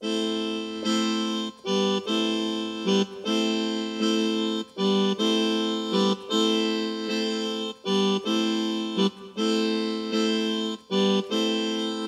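Electronic keyboard playing a slow run of sustained chords. Each chord holds steady for one to two seconds, then breaks briefly as the next is struck.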